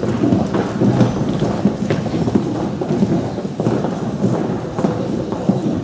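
Large audience applauding, a dense steady clatter of many hands clapping.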